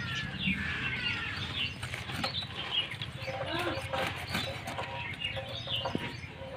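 Small birds chirping and twittering in quick, short calls, with a few faint taps of a knife cutting through a fish.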